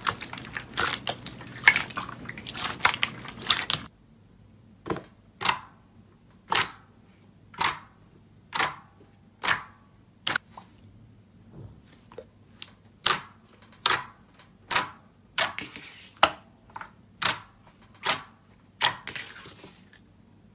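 Slime being handled for ASMR. First comes a dense crunchy crackling, then after a sudden drop, sharp separate pops or clicks at about one a second, some in quick pairs.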